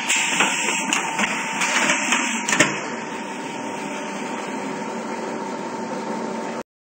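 Coupler peeling and chamfering machine running with a steady hum and a constant whine. In the first few seconds there are several sharp metallic knocks, the loudest about two and a half seconds in. The sound cuts off suddenly near the end.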